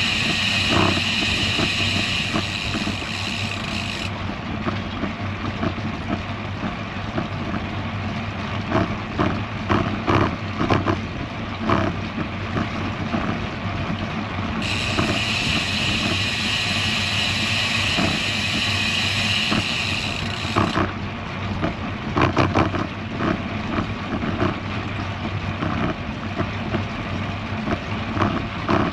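Road bike riding along a bridge deck: wind buffeting the microphone over steady tyre and road noise, with gusty thumps. A high buzz is on at first, stops about four seconds in, and comes back for about six seconds in the middle.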